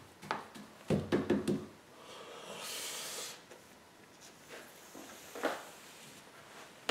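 Wide paintbrush applying acrylic varnish to a canvas: knocks and clatter as the brush and its pot are handled about a second in, a short hissing brush stroke across the canvas a little before halfway, and a few fainter knocks later.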